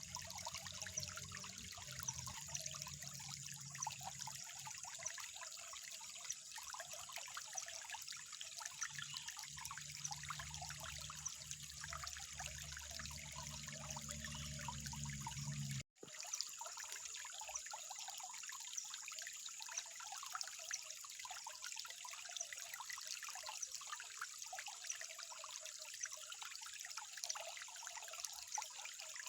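Water trickling and splashing steadily in a small stream, a continuous fine babble. A low steady hum runs beneath it for the first half and stops at a brief dropout in the sound just past halfway.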